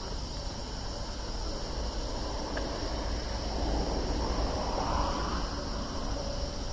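A Gotemba Line train approaching and running into the station, its rumble growing louder to a peak about five seconds in, then easing slightly.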